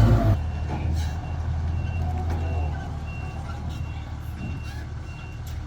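Reversing alarm on heavy construction machinery beeping in short, evenly spaced beeps, a little under two a second, over a diesel engine running steadily.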